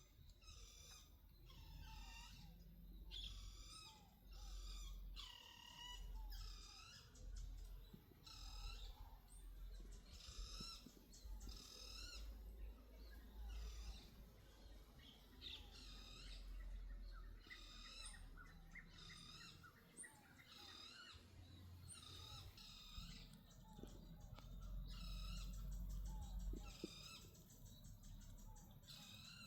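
Birds calling with short, repeated chirping notes, one or two a second, over a faint low rumble.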